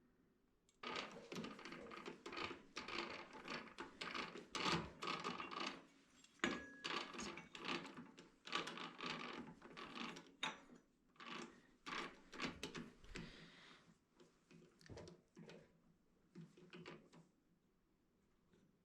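Rapid, irregular clicking and clattering of hard objects. It starts about a second in and thins out to scattered clicks after about thirteen seconds.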